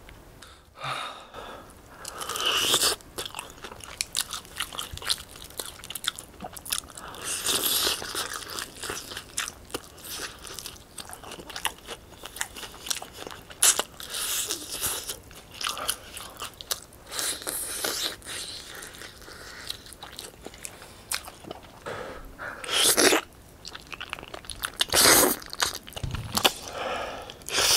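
Close-miked eating sounds: chewing and biting into crunchy fried chicken, with a run of wet mouth clicks, broken by several loud slurps of glass noodles and tteokbokki in spicy sauce.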